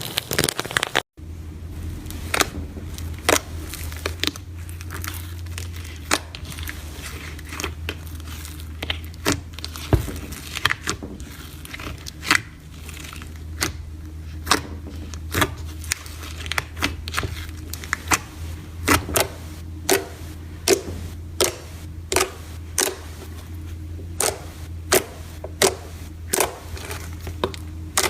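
Hands working soft slime, making sharp sticky pops and clicks at an irregular pace of about one or two a second, over a low steady hum.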